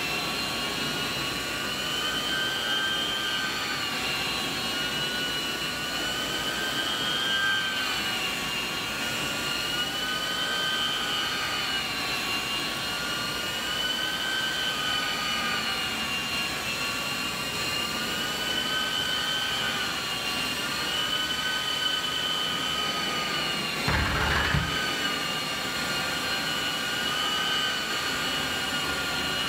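Rotovac rotary carpet extraction tool on a truck-mounted hot water extraction system, running as it is pushed across wet carpet: a steady loud whine of vacuum suction whose pitch wavers slowly up and down. A brief low thump comes about 24 seconds in.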